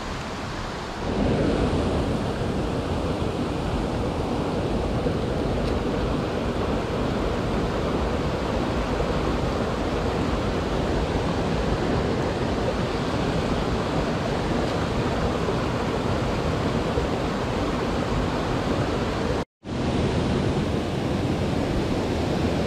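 Steady rush of a fast-flowing mountain stream, growing louder about a second in, with a brief dropout near the end.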